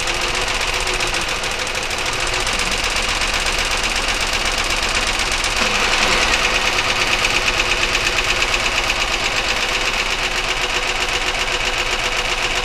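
1999 Chevy Malibu's 3100 V6 idling with a fast, steady internal ticking knock while single cylinders are dropped in turn. The knock stays just as loud with each cylinder dropped, which the owner takes as pointing to the top end rather than rod knock.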